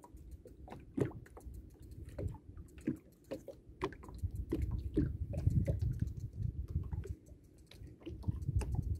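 Small boat on the open sea: water slapping against the hull over a low rumble, with irregular knocks and clicks.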